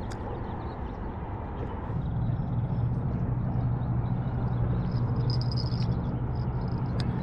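Steady low engine hum that comes up about two seconds in and holds, over a background hiss.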